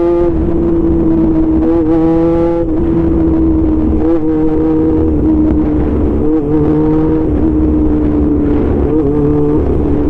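Honda CB400 motorcycle engine running at a steady cruise as the bike rides along. It gives one steady engine drone whose pitch dips briefly a few times with small throttle changes and sags slightly toward the end, over a low rumble of wind.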